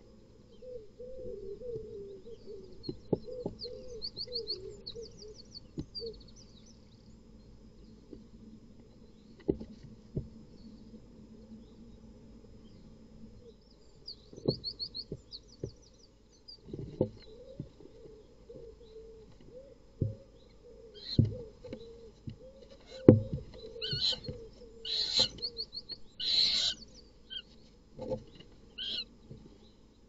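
Barn owls struggling in a wooden nest box: repeated short wavering calls, sharp knocks and scuffles against the box floor and walls, and a run of harsh hissing screeches near the end. Two brief fast high ticking trills come in early on and about halfway.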